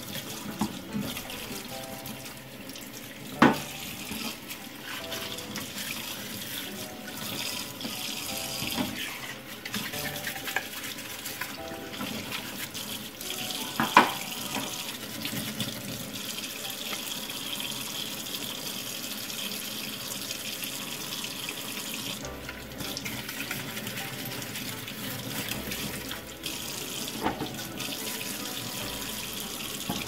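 Kitchen tap running into a stainless steel sink while baby bottle parts are washed, with a few sharp knocks. The loudest knocks come about three seconds in and near the middle.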